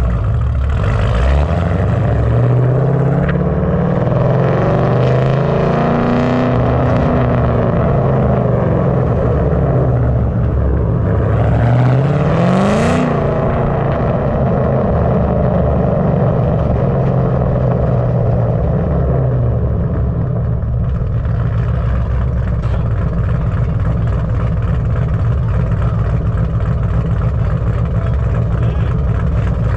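Ford Mustang's 4.6-litre three-valve V8 revving up and slowly back down, then a quick sharp rev about twelve seconds in, after which it runs at a steady pitch.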